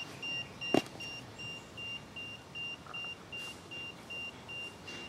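Handheld EMF meter beeping steadily, short high beeps a little more than twice a second, the alarm set off by a reading it is picking up. A single sharp click about three quarters of a second in.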